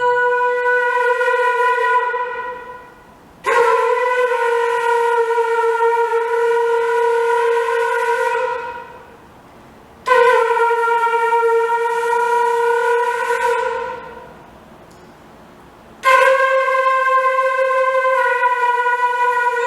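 Music: a series of long held notes on about the same pitch, each lasting several seconds with a short pause between, the last one slightly higher.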